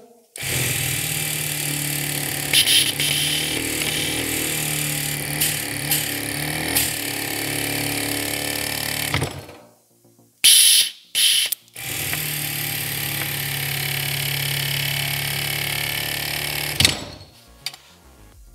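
BMW F-series air suspension compressor's electric motor and pump running on direct power at its motor pins during a bench test after repair. It runs steadily for about nine seconds and stops, gives a few short bursts as power is touched on again, then runs steadily for about five more seconds and stops.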